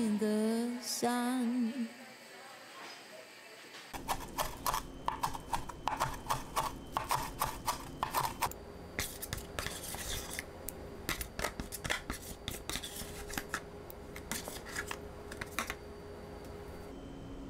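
A knife chopping fresh parsley on a plastic cutting board: a run of quick sharp taps, about three a second, that starts a few seconds in and stops near the end. A pop song with singing fades out in the first two seconds.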